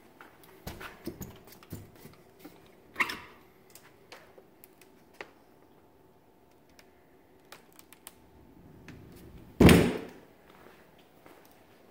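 Scattered knocks and rustles, with a sharper knock about three seconds in and one loud thump near the end.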